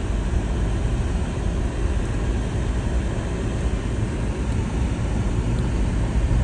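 Pickup truck driving slowly across lake ice: a steady low rumble of engine and tyres.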